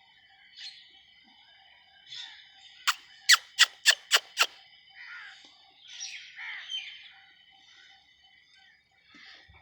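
Birds chirping in short scattered calls. A quick run of six sharp clicks or knocks, about four a second, comes about three seconds in and is the loudest sound.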